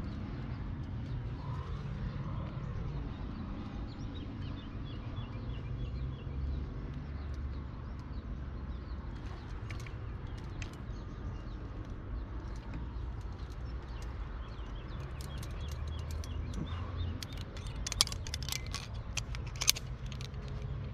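Clicks and scrapes of a climber's hands and gear on limestone rock, sharpest near the end with two louder knocks, over a steady low rumble.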